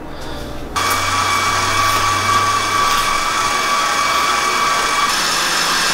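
Electric sausage stuffer's motor running steadily with a whine, starting about a second in, as it pushes hot dog meat into a hog casing. Its whine changes pitch near the end.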